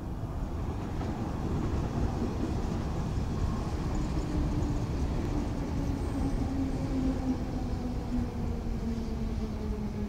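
Budapest HÉV suburban electric train running past close by: a steady low rumble, with a motor whine that slowly falls in pitch through the second half.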